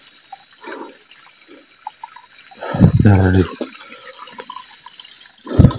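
Small rocky stream running and trickling over stones.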